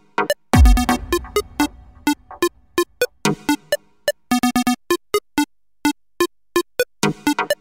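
Background synthesizer music: short, clipped keyboard notes in quick runs with pauses between them, and a deep boom about half a second in that dies away over a couple of seconds.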